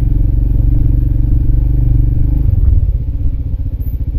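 Motorcycle engine running under steady throttle on a dirt track, then easing off about two and a half seconds in and settling into an even, pulsing idle as the bike stops.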